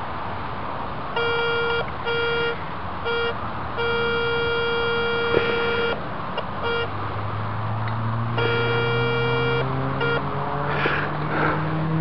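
Garrett Ace 250 metal detector beeping, a buzzy tone at one pitch sounding again and again in blips and longer beeps as the coil sweeps back and forth over a buried metal target. Under the beeps a low drone rises slowly in pitch through the second half.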